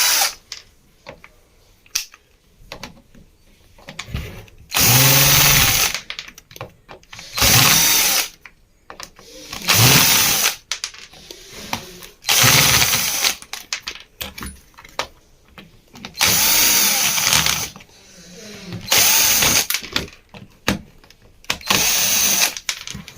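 Cordless (DC) electric screwdriver backing out screws from an instant water heater's casing. It runs in about seven short bursts of roughly a second each, the motor spinning up and down. Small handling clicks fall between the bursts.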